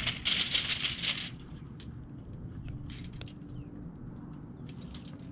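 Granular Creole seasoning shaken out of a shaker canister onto fish, a gritty rattle for about the first second. A few faint light clicks follow.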